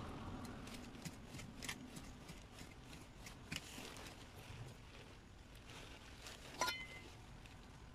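Faint scraping and rustling of gardening by hand: a small trowel digging in soil and a flowering plant being handled and set into the bed. The loudest moment is a short sharp click with a brief high ring about six and a half seconds in.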